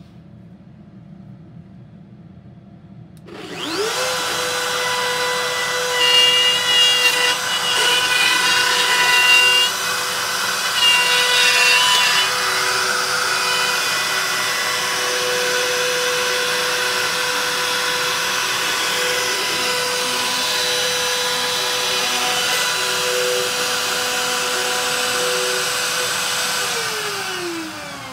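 Makita compact plunge router switching on about three seconds in, spinning up to a steady whine and cutting a shallow circular groove into a reclaimed chestnut board. The cutting is louder and rougher between about six and twelve seconds in. Near the end the router is switched off and winds down.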